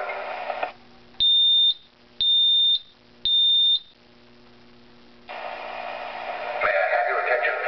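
Talking smoke detector in drill mode sounding three loud, high, steady beeps of about half a second each, evenly spaced about a second apart: the three-beep temporal-three fire evacuation pattern. Its recorded voice message plays briefly before the beeps and starts again after them.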